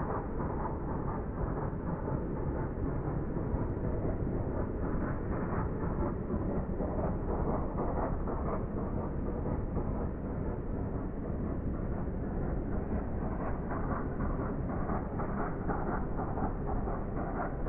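Flying Scotsman, an LNER A3 three-cylinder Pacific steam locomotive, working hard with a steady exhaust beat over a deep rumble, heard from far off.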